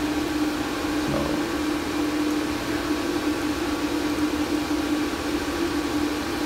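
Cooling fans of many Bitmain Antminer mining rigs running together: a steady rushing drone with a constant hum in it.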